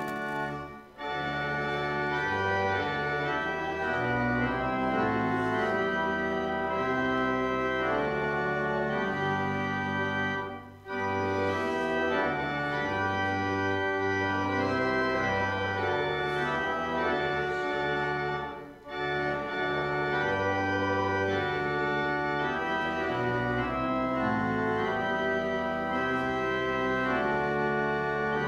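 Church organ playing a slow hymn tune in sustained chords, with short breaks between phrases about a second, eleven and nineteen seconds in.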